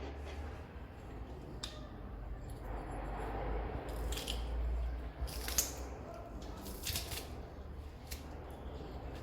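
Garlic cloves being handled and cut in the kitchen: scattered soft clicks and scraping strokes over a low steady hum.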